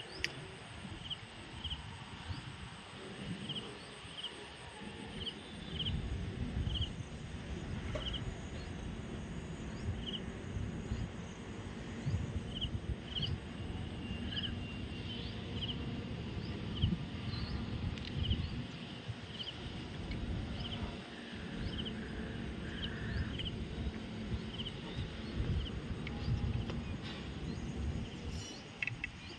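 Outdoor ambience: short high chirps repeating about once a second, often in pairs, over a low, uneven rumble.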